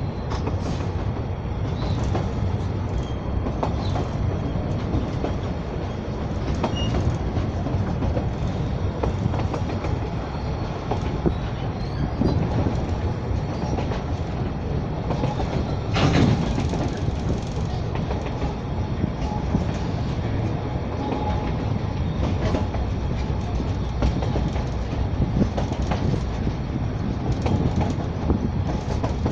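Narrow-gauge passenger train heard from on board while riding: a steady rumble of wheels on the rails, with scattered clicks over the rail joints and one louder clank about halfway through.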